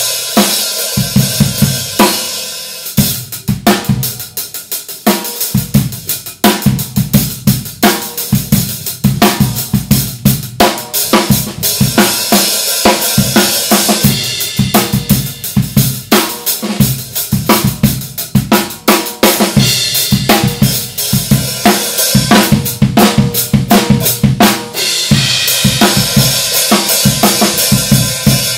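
Full drum kit played in a steady groove: kick drum and snare under crisp, high-pitched Paiste 2002 Sound Edge 14-inch hi-hats. The cymbals get louder and washier near the end.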